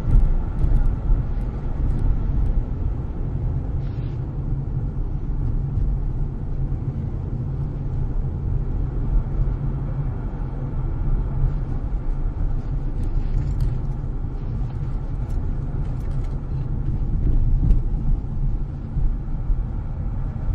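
Steady low rumble of a car's engine and tyres while driving along city streets, with a few faint clicks.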